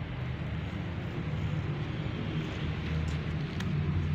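Steady low outdoor rumble of background noise, with a single short tick about three and a half seconds in.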